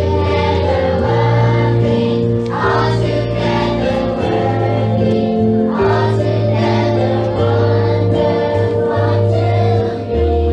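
Choir singing a church song with instrumental accompaniment and a held bass line that shifts every second or two.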